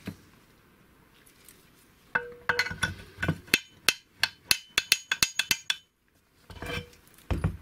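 Steel kickstarter parts clinking and clicking against the aluminium gearbox case of a Vespa engine as they are fitted. From about two seconds in there is a quick run of sharp, ringing metallic clicks, followed by a couple of duller knocks near the end.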